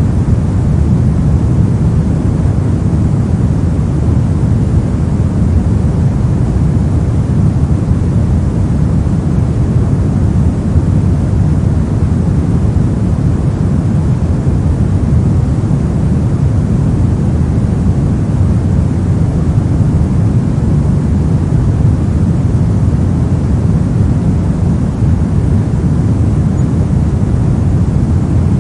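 Pink noise: a steady, unchanging rush of noise, strongest in the low frequencies.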